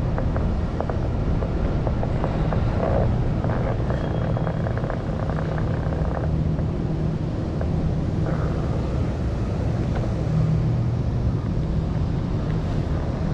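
Steady low rumble and hum of a OneWheel electric board riding along the street, with a run of small rattling clicks from about half a second to six seconds in.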